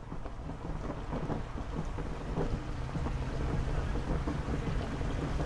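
Steady rain with a deep low rumble, growing slowly louder.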